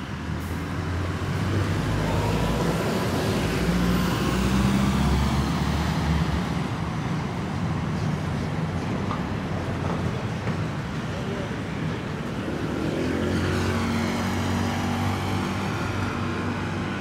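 City junction traffic ambience: a car passes close by, loudest about four to six seconds in, then a second engine accelerates with rising pitch near the end, over a steady background of city traffic and distant voices.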